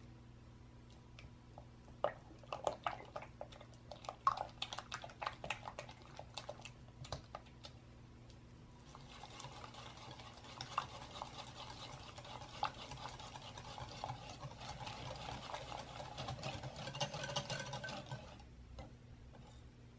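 Wire balloon whisk beating eggs into cream cheese in a glass bowl: a steady run of quick wet swishing and small clicks of the wires against the glass, from about nine seconds in until it stops near the end. Before that, irregular sticky squelches and taps of a silicone spatula working the eggs into the cheese.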